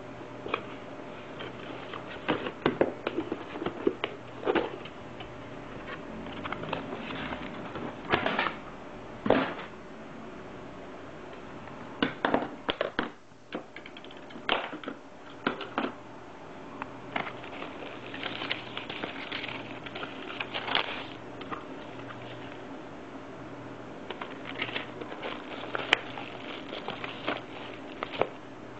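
Packaging of a boxed wireless router being handled and unpacked: irregular clicks, taps and short rustles of cardboard and plastic, over a steady low hum.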